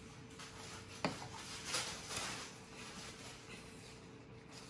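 Glue stick rubbed over paper cutouts in short scratchy strokes, with a sharp tap about a second in.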